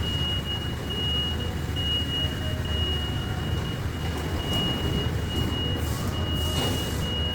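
CNC laser cutting machine running: a steady low hum with a constant thin high-pitched tone over it, and a few faint ticks.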